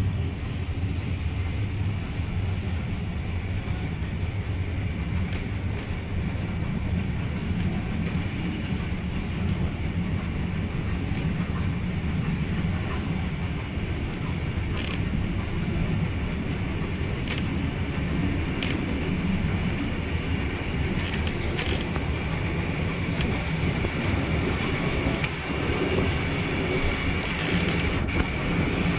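Steady rumble of a steam-hauled heritage train's carriage wheels running along the track, with scattered sharp clicks and rattles at irregular intervals, heard from inside a wooden carriage with its window open.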